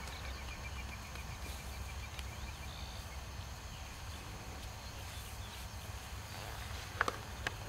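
Outdoor ambience: a steady low rumble, a faint, high, rapid ticking trill during the first three seconds, and two short sharp clicks about seven seconds in.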